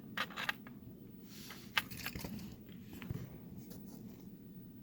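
A few light clicks and rustles from small metal lock parts being handled: the pins and springs of a disassembled padlock. The sharpest clicks come near the start and just under two seconds in.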